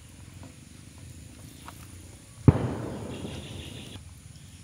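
A ladleful of thick orange kesari dropped onto a banana leaf, landing with a single sharp thump about halfway through, over faint low background noise.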